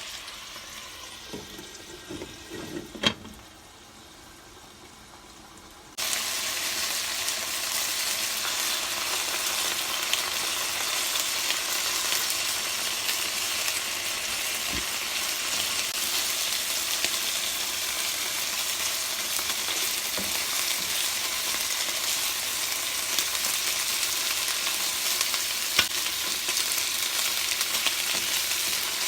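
Food sizzling as it fries in a hot pan. In the first few seconds the sizzle is quieter, with a few knocks and one sharp click; about six seconds in it suddenly gets louder and then stays steady.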